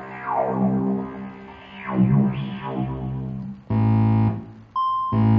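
Korg Kaossilator Pro synthesizer played live on its touchpad: several falling pitch sweeps over a steady bass drone, then two short, loud, buzzy held notes in the last two seconds.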